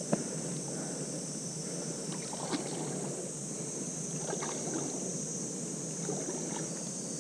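A person wading through shallow, weed-covered water, with scattered small splashes and swishes as the legs push through water and floating water chestnut plants.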